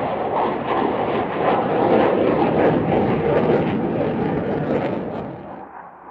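Loud jet noise with a rough crackle from an F-15 Eagle's twin turbofan engines as the fighter flies past; the sound fades away near the end.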